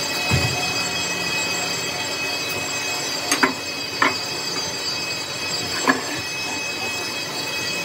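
Steady, high-pitched metallic squeal of metalworking machinery, with a low hum and four sharp metallic knocks scattered through it.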